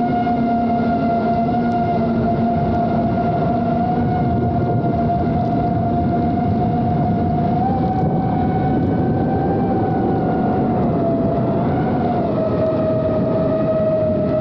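FPV quadcopter's motors and propellers whining steadily, heard from the drone's own camera. The pitch rises a little about eight seconds in and drops back after about eleven seconds as the throttle changes.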